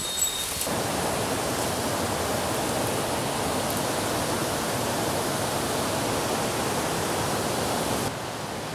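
Steady rush of water from a mountain headwater stream or cascade, after a few light knocks in the first moments. The rush drops back a little near the end.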